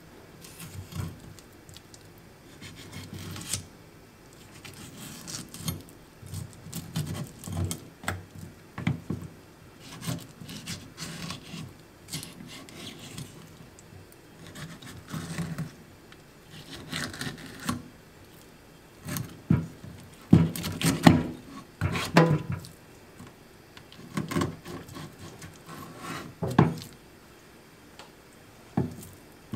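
Kitchen knife slicing a raw filefish fillet on a wooden cutting board: irregular soft knocks and scrapes of the blade and the fish on the wood, loudest about two-thirds of the way through.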